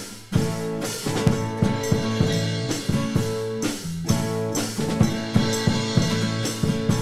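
Live band playing an instrumental passage: drum kit keeping a steady beat, about three hits a second, under strummed acoustic and electric guitars. The sound drops briefly just after the start.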